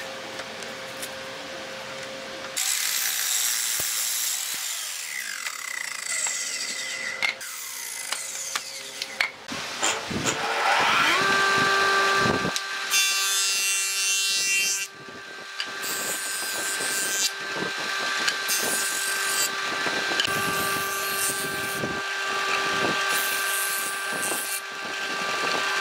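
Woodworking power tools. First a sliding compound miter saw cuts through a pallet board, its motor winding down afterwards. Then the motor of a combination jointer-planer spins up with a rising whine and runs steadily, while a board is fed across the jointer cutterhead in about eight repeated passes.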